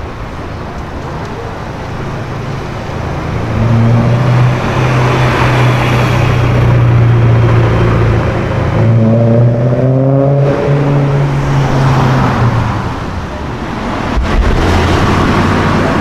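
Car engine, most likely the silver BMW M3 convertible's, running in low gear through city traffic. The low note is steady, rises in revs for a moment about two-thirds of the way through, and is followed near the end by another car speeding up.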